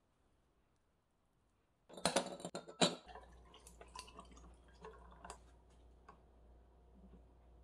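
Ice cubes in a tall glass clinking sharply about two seconds in, then a drink pouring from a pouch over the ice, with a steady liquid sound and scattered small ticks from the ice.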